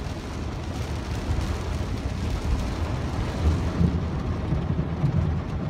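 Heavy rain pelting a car's roof and windshield, a steady hiss over the low rumble of the car driving through standing water, heard from inside the cabin.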